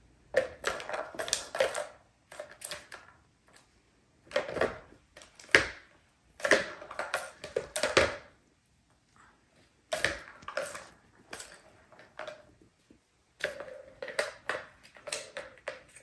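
Plastic balls clattering and rolling around the tracks of a tiered cat tower toy as kittens bat at them, in irregular bursts of rattling with short pauses between.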